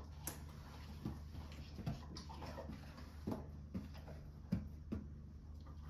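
Faint, irregular small taps and clicks, roughly one or two a second, from a dog fidgeting against its handler during treat training, over a steady low room hum.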